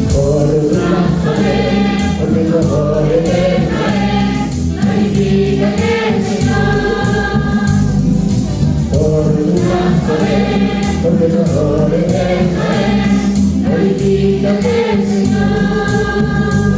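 Gospel worship song: voices singing in a choir over a steady instrumental accompaniment, with long held notes.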